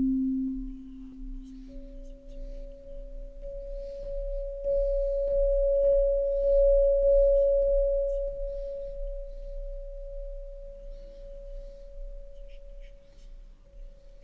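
Ambient background music of long, pure sustained tones, like a singing bowl: a low tone fades away in the first few seconds while a higher one comes in, swells about halfway through and slowly fades, over a low steady hum.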